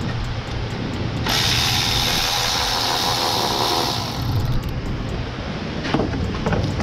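Pneumatic shop tool running for almost three seconds, a steady airy hiss starting about a second in, over a constant low hum, with a couple of knocks near the end.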